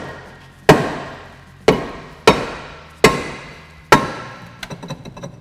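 Dead blow hammer striking a rusted-on rear brake rotor, five blows about a second apart, each leaving a ringing decay; the blows are meant to break the rust bond between rotor and hub. A few light clinks follow near the end.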